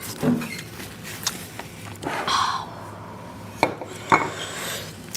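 Light clicks and clinks of utensils against a dish, with a short scraping rustle about two seconds in and two sharper clicks later, as snack food is handled.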